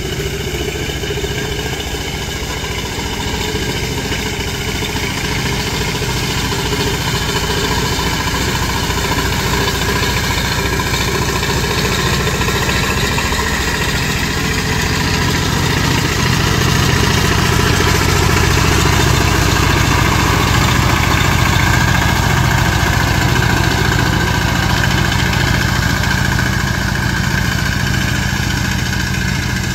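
Two-wheel power tiller's single-cylinder diesel engine running steadily as the tiller is driven across a wet field. It grows a little louder and heavier about halfway through.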